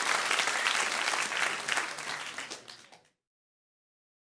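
Applause, a dense patter of many hands clapping, fading away and cutting off to silence about three seconds in.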